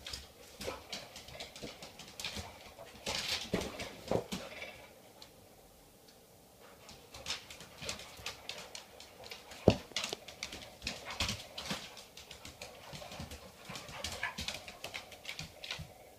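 A black Labrador and a springer spaniel playing rough on a hardwood floor: claws clicking and scrabbling on the boards and paws scuffling in quick irregular taps. A single sharp knock sounds near the middle.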